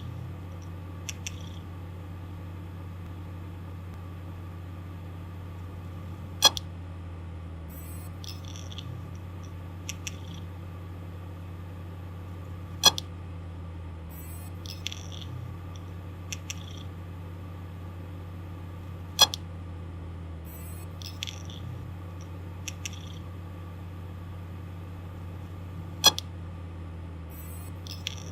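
Failing hard disk drive spinning with a steady hum, its read/write head giving a loud sharp click about every six and a half seconds, with fainter ticks in between: the repeated clicking of a damaged drive.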